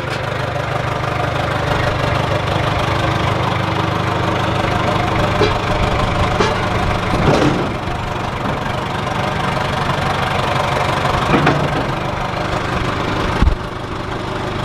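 Engine of a John Deere tractor-backhoe running steadily, with a few separate knocks and clunks of the backhoe working, the loudest a low thump near the end.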